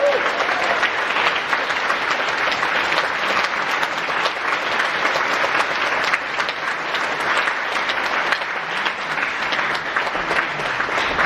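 Audience applauding steadily at the end of a choir performance, starting as the last sung note dies away.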